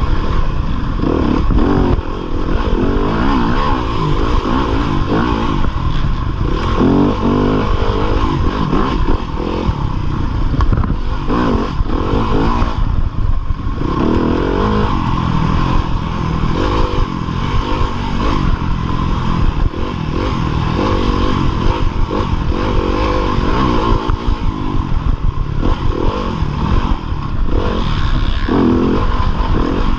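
2015 Yamaha YZ250FX four-stroke single-cylinder dirt bike engine under hard riding, revving up and dropping off again and again with throttle and gear changes, heard close up from the rider's chest.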